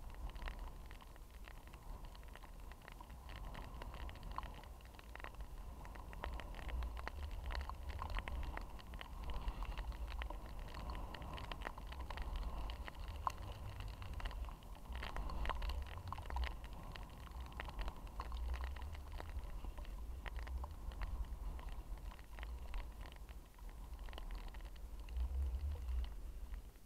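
Wind rumbling on an action camera's microphone during a downhill ski run, with skis scraping over snow and many small, irregular clicks.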